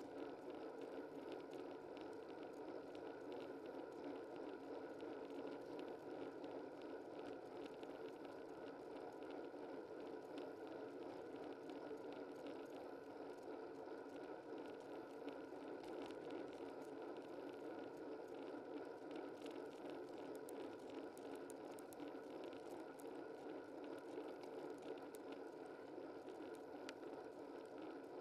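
Steady rushing noise of a bicycle on the move, tyres on the road and wind, with faint scattered ticks in the second half.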